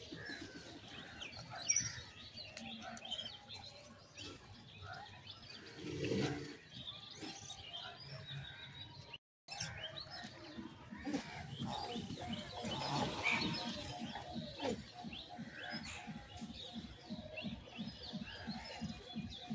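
Outdoor ambience with birds chirping and calling. The sound cuts out completely for a moment about nine seconds in.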